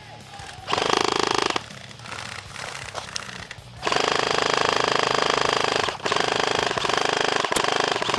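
Electric airsoft rifle, a WE MSK running on an 11.1 V LiPo battery, firing on full auto in a rapid, even rattle. A short burst comes about a second in, then a long burst starts about four seconds in and runs on, with a brief break near six seconds.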